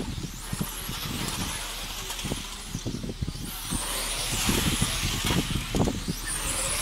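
Electric 1/10-scale RC pan cars racing past, their motors whining up and down in pitch as they accelerate and brake, over a steady hiss of tyres on asphalt.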